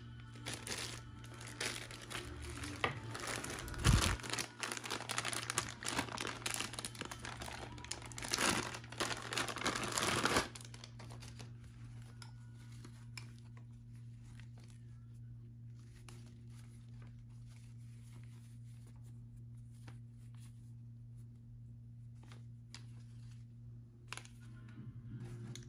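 Clear plastic packaging bags crinkling and rustling as they are handled, dense and loud for the first ten seconds or so, then stopping suddenly. After that, only a few light clicks of handled plastic parts over a steady low hum.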